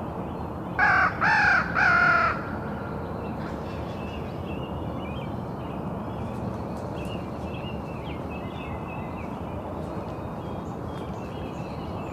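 A crow cawing three times in quick succession, followed by a steady outdoor background with faint high chirps.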